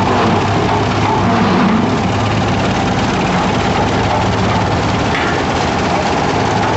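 Heavy construction machinery engine running steadily, a continuous low drone with a steady higher hum over it.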